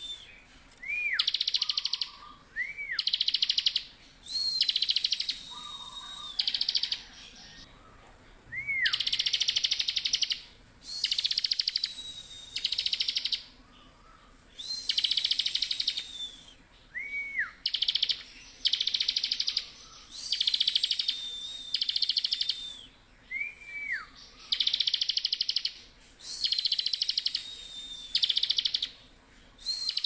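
A caged bar-winged prinia (ciblek) singing vigorously and without pause. It repeats high, fast-rattling buzzy trills about a second long, alternating with thin whistled notes that drop at the end and short rising-and-falling chips.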